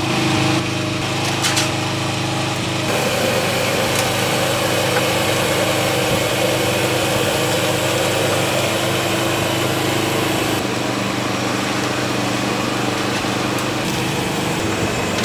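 Steady hum of a small engine running, its tone shifting abruptly about three seconds in and again after ten seconds.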